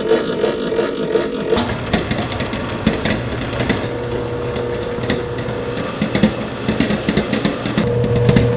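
Commercial planetary stand mixer running, its flat beater churning flour and batter in a stainless-steel bowl: a steady motor hum with many scattered clicks and knocks.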